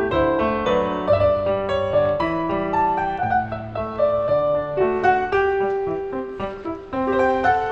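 Background piano music: a slow melody of single held notes over steady lower notes.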